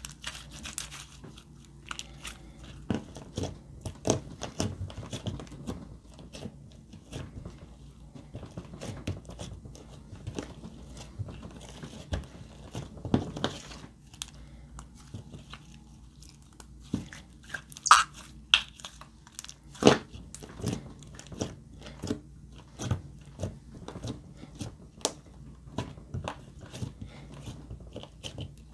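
Glossy slime squeezed and kneaded by hand, giving a run of irregular wet squelches and sharp clicking pops, the two loudest a little past the middle.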